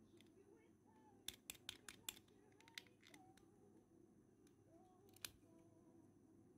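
Faint sharp plastic clicks as the black plastic chassis of a Mini GT 1/64 diecast Porsche Taycan Turbo S is pried off its metal body: a quick run of five or six clicks about a second in, then a single click a little later and another about five seconds in.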